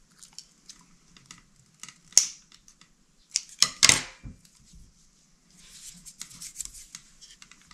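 Scissors snipping the excess off a self-adhesive felt light-seal strip: small clicks and a sharp snip about two seconds in. Just before four seconds comes a louder clatter of clicks and knocks as the steel scissors are laid on the wooden bench, followed by faint rubbing.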